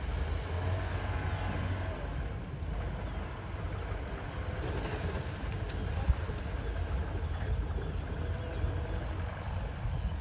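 Steady low rumble of an idling boat engine, with one sharp knock about six seconds in.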